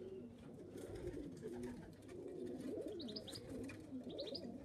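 Pigeons cooing continuously in low, wavering calls. A small bird gives two quick groups of short high chirps, about three and four seconds in.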